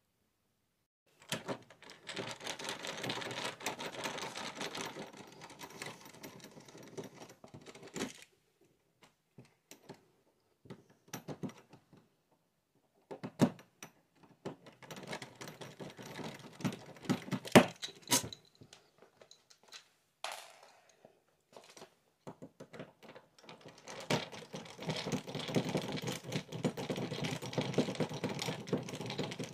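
A screwdriver turning screws in a brass doorknob set, making rapid clicking and scraping. There is a long run of fast clicks near the start, scattered single clicks in the middle, and another long run near the end.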